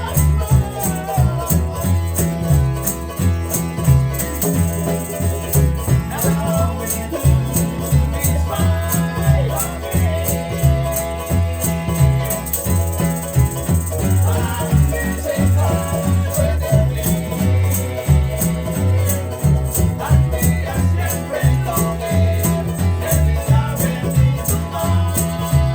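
Vanuatu string band playing: a deep bass line, a shaker keeping a steady even beat, and group singing over plucked strings.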